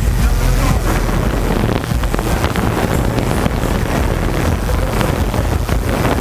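Camera drone's propellers whirring loudly and steadily close to its own microphone.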